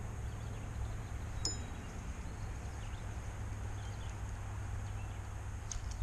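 Quiet riverside outdoor ambience: a steady low rumble like light wind on the microphone, with one brief high chirp about a second and a half in.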